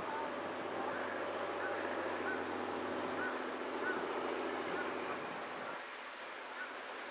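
A steady, high-pitched insect chorus drones without a break. Faint short chirps repeat about once a second over it, and a low murmur underneath drops away about six seconds in.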